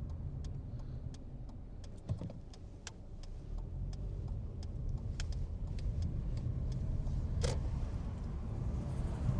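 Car driving at low speed, heard from inside the cabin: a steady low engine and road rumble with many small, irregular light clicks, and one sharper click about seven and a half seconds in.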